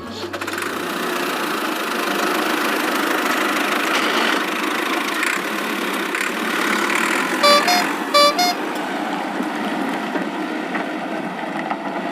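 A vehicle engine running steadily, with a horn honking twice in quick succession a little past the middle.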